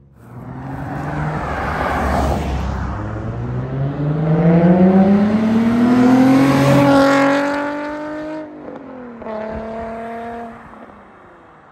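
Nissan 350Z's 3.5-litre V6 through a Tomei aftermarket exhaust, accelerating hard past. The engine note climbs steadily for several seconds and is loudest mid-way, drops sharply about eight and a half seconds in, then fades as the car pulls away.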